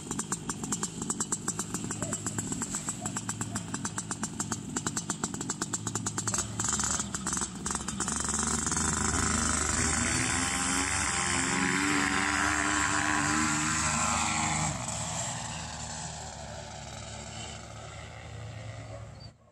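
Air Conception Tornado 280 paramotor's 33-horsepower two-stroke engine and propeller running, pulsing for the first several seconds. About eight seconds in the engine throttles up and runs louder with its pitch shifting, then eases off and fades.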